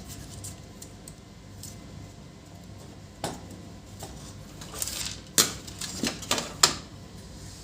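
Plastic clicks and knocks of a cable connector being handled and plugged into a laser printer's circuit board: about half a dozen sharp clicks in the second half, over a low steady hum.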